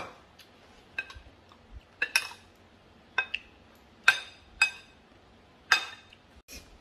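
Metal spoon clinking against a ceramic plate while tossing papaya salad: a series of sharp, ringing clinks, roughly one every second, some in quick pairs.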